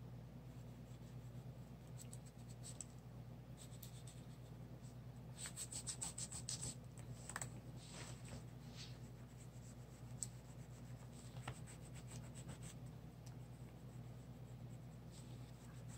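Oil pastel scribbled and rubbed across a paper journal page: faint scratchy strokes, with a quicker run of strokes about five to seven seconds in. A low steady hum runs underneath.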